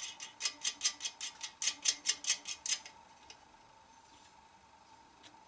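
Ratchet wrench clicking quickly as a bolt is tightened down, about five clicks a second, stopping about three seconds in.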